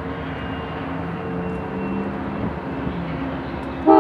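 Diesel locomotives of a CSX freight train, a GE AC44CW and an EMD SD70MAC, running with a steady rumble. Near the end a locomotive air horn starts blowing, loud and sudden.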